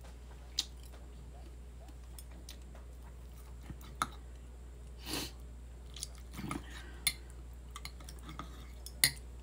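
Close-up eating sounds: chewing a bite of tamale with egg, while a metal fork clicks and scrapes on a ceramic plate as the next bite is cut. There are several sharp fork clinks, the loudest near the end.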